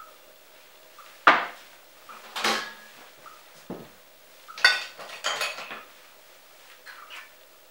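A ceramic baking dish and a metal baking tray being moved and set down on a kitchen counter: several separate knocks and clatters, the loudest about a second in, and two of them with a brief metallic ring.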